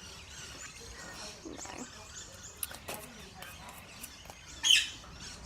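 A pet bird gives one short, high-pitched chirp near the end, over faint scattered clicks; a single softly spoken word comes about two seconds in.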